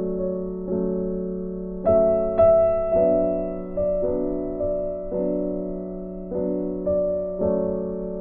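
Background piano music: slow chords struck about once a second, each ringing and fading, with the loudest notes about two seconds in.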